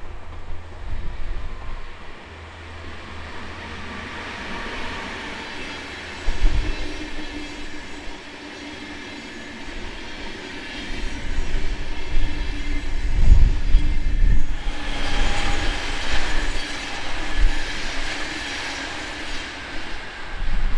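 A class 146 electric locomotive and IC2 double-deck coaches passing, a steady rail rumble with wheels clattering over the yard's points. About two-thirds through, the wheel and rail noise grows louder and brighter, with thin squealing tones, as the coaches go by.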